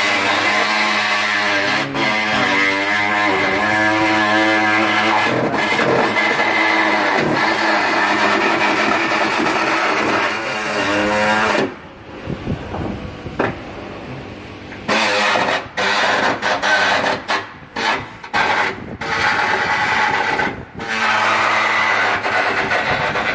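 Background guitar music, with a quieter stretch about halfway through.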